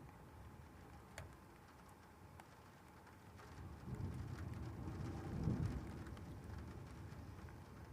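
Thunder over rain: a low rumble builds about halfway through, peaks, then fades, with light rain and scattered drips under it.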